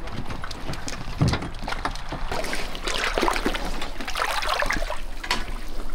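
Feet sloshing and splashing through ankle-deep water over a gravelly beach bottom, in irregular steps that get busier about halfway through, with one low thump a little over a second in.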